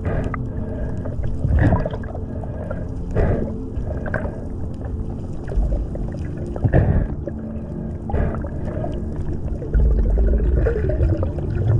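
Muffled underwater noise from a camera in a waterproof housing: water swishing past in soft surges every second or two over a steady low hum.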